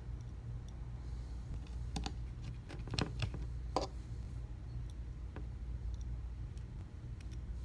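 Scattered small clicks and taps, bunched about two to four seconds in, of tools and small parts being handled during an iPhone 6s repair, over a steady low hum.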